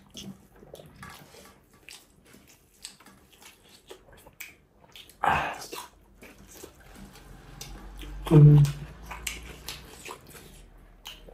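Faint clicks and smacks of eating by hand. Two short, louder voice-like sounds come through, a sharp one about five seconds in and a lower pitched one about eight seconds in.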